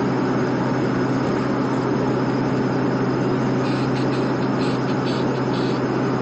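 Car cabin noise while driving: a steady drone of engine and road noise with a constant low hum.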